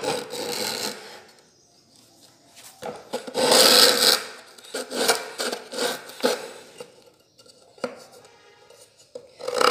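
A wooden strip used as a homemade compass, with a protruding nail at its end, rubbing and scraping across a plywood sheet as it is swung to scribe a curved marking line. Several uneven strokes, the loudest about three and a half seconds in, another short one near the end.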